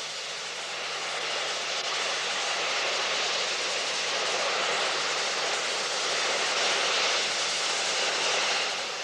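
Steady hiss of steam from a standing BR Standard Class 9F 2-10-0 steam locomotive in steam. It swells slowly and dies away at the very end.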